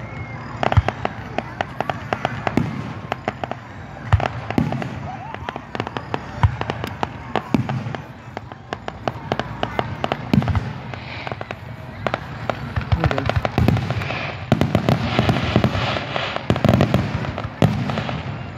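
Aerial fireworks going off: repeated sharp bangs of shells bursting. About three quarters of the way through they become a dense, rapid volley of bangs and crackling.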